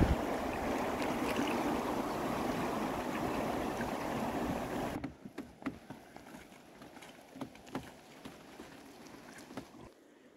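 Steady rush of river water pouring over a small rapid, which cuts off abruptly about five seconds in. Then quieter flowing water with scattered light splashes and small knocks.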